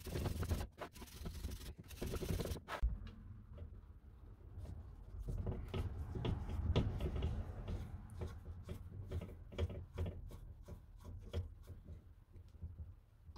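A steel wire brush scrubbing paint and rust off the metal casting of an old bathroom scale in short spells. After about three seconds, a flat-blade screwdriver scrapes and clicks in the paint-clogged slots of rusted screws.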